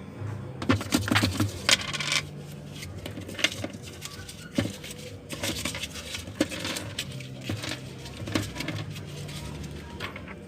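Coins clinking and jingling as they are handled, with many sharp clicks that are densest and loudest in the first couple of seconds and then come more sparsely.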